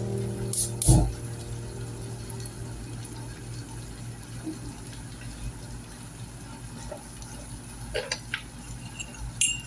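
Water running steadily, as from a kitchen tap, with a sharp knock about a second in and a few light clicks near the end.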